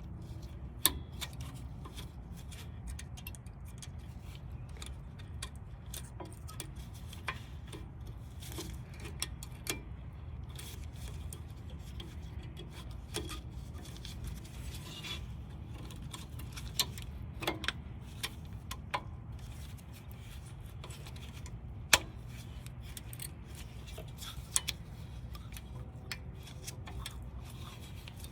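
Scattered light metallic clicks and taps of brake pads, clips and hand tools being handled, at irregular intervals over a steady low hum. One sharper tap comes about three quarters of the way through.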